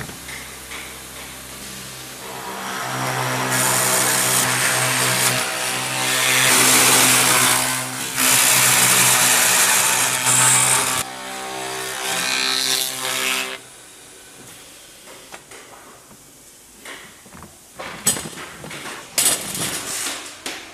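Woodworking machine's spindle motor running with a steady hum while a rotary cutter bores into a wooden cable-drum flange, the loud wood-cutting noise starting a couple of seconds in and stopping about two-thirds of the way through. After that the hum goes on more quietly, with a few sharp knocks and clatters near the end.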